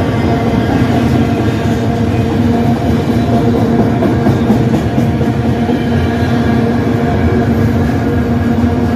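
CN freight train's autorack cars rolling past close by: a loud, steady rumble and rattle of wheels on rail, with a steady droning tone running through it.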